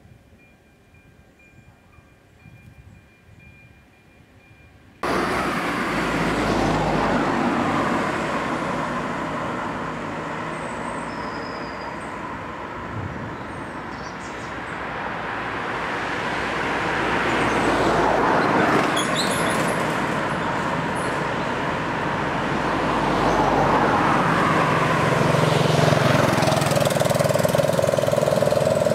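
Road traffic on a bridge: cars drive past close by, and a motorcycle engine comes up loudly near the end. Faint for the first five seconds, then the loud traffic noise cuts in abruptly.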